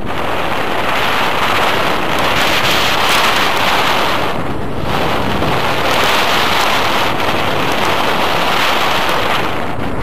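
Airflow of a paraglider in flight rushing over the camera microphone: steady, loud wind noise that eases briefly about four and a half seconds in.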